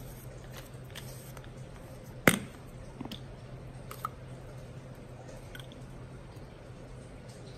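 Small handling clicks from a Hasselblad XPAN II camera and a 35mm film cassette being handled: one sharp click about two seconds in, then a few lighter clicks, over a steady low hum.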